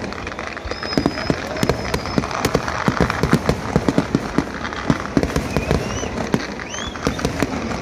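Vedikkettu fireworks display: a rapid, irregular string of bangs and crackles from aerial shells bursting and charges launching from the ground. A few short high whistles rise over the bangs.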